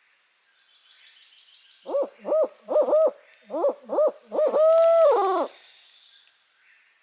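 Barred owl hooting loudly: a quick run of about seven short hoots, then one longer drawn-out hoot that falls away at the end, the 'who cooks for you, who cooks for you all' pattern.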